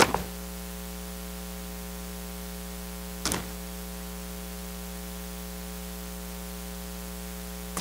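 Steady electrical mains hum and hiss, with a sharp click at the start and a brief rustle about three seconds in as Bible pages are turned.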